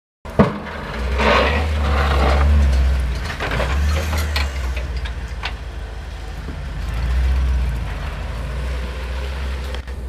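Pickup truck engine running while it plows snow, swelling louder about a second in and again around seven seconds. A scraping hiss of the plow blade pushing snow runs through the first few seconds, with a couple of sharp knocks midway.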